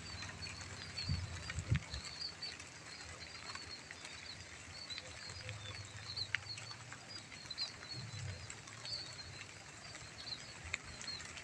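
Light drizzle falling over a rice field: a steady soft hiss with scattered drop ticks, over a constant stream of short, high chirps from small birds.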